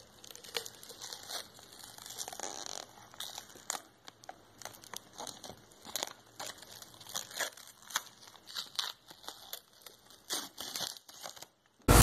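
Thin clear plastic bag crinkling as it is peeled off a small plastic-cased device, in faint, irregular crackles and rustles.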